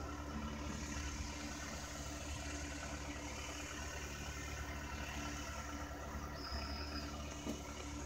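Tractor engine running steadily as it pulls a wheel hay rake across a hayfield.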